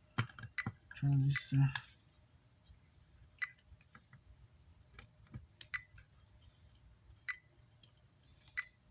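A handful of light, sharp metallic ticks spaced a second or so apart, as test-meter probe tips tap the legs of the amplifier's output transistors during testing.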